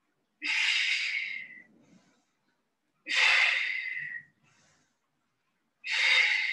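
A woman's forceful exhalations during a single-leg glute bridge exercise: three hissing breaths out, each about a second long and spaced about two and a half seconds apart, one with each lift of the leg, with fainter breaths in between.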